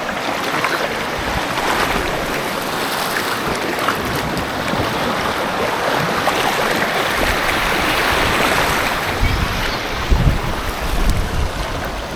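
River water rushing and splashing around a bamboo raft as it floats along, a steady hiss of moving water. Low rumbles of wind on the microphone come in gusts about nine to eleven seconds in.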